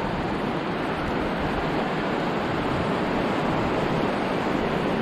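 Steady, even rushing noise with no rise or fall.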